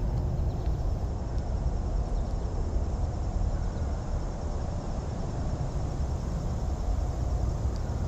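Wind buffeting the microphone: a steady, gusty low rumble throughout.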